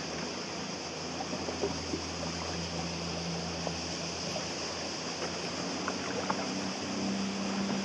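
Small waves lapping and trickling against the hull of an anchored sailing yacht: a steady wash of water with faint small splashes. A faint low steady hum runs underneath.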